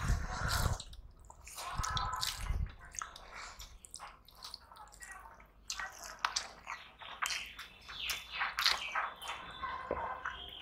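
Close-up eating sounds: wet chewing and lip-smacking with many small sharp clicks, and fingers squishing rice and curry against steel plates.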